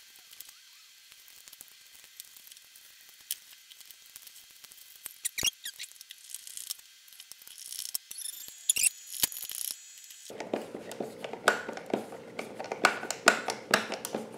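Scattered light clicks and taps of small parts being handled on a tabletop. From about ten seconds in comes a denser run of clicks and scraping as a hand screwdriver drives the screws that hold the lid onto a small electronics project box.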